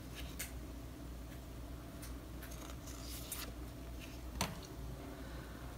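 Faint rustling and soft taps of paper sticker sheets being handled, with one sharper click about four and a half seconds in.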